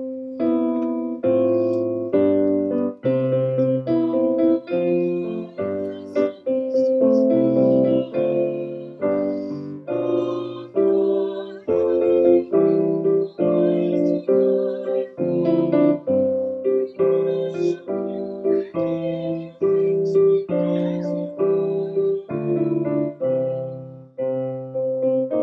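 Piano playing a hymn of praise as an instrumental, in steady block chords changing about every two-thirds of a second.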